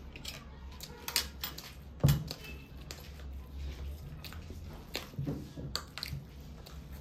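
Someone eating: scattered small clicks and taps of tableware with chewing between them, and one louder knock about two seconds in.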